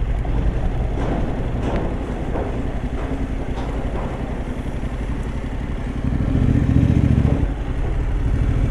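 Motorcycle engine running at low speed with a steady pulsing note. It gets louder for about a second and a half, some six seconds in.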